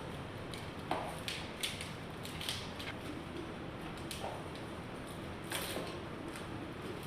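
3D-printed plastic face shield frames being handled, giving a few irregular clicks and creaks over a steady background noise.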